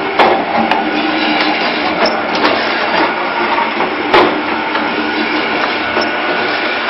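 Shisha charcoal tablet press machine running: a steady loud mechanical clatter with irregular sharp knocks, the strongest about four seconds in.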